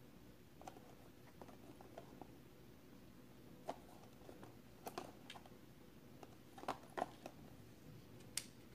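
Hands handling and turning a small cardboard box: faint, scattered taps and rubs of fingers on the card, with a few sharper clicks in the second half.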